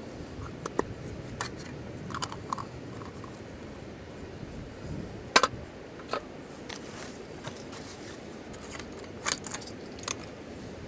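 Irregular small clicks and clinks of objects being handled, with one sharper knock about five seconds in, over a steady background hiss.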